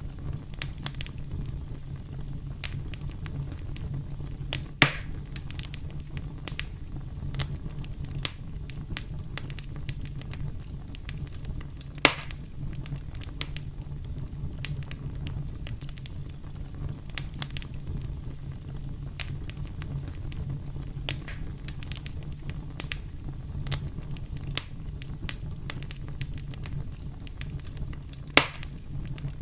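Campfire crackling: burning wood with a steady low rumble and frequent small crackles, and three louder sharp pops, about five seconds in, about twelve seconds in and near the end.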